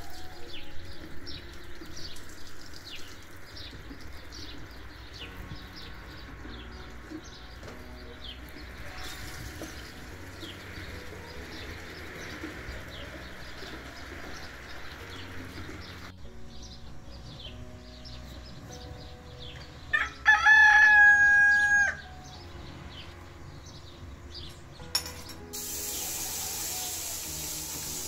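A rooster crows once, about two-thirds of the way through, in a loud call of roughly two seconds that rises and then holds. Small birds chirp throughout. Water pours and runs in the first half as rice is rinsed under a tap, and a steady hiss comes in near the end.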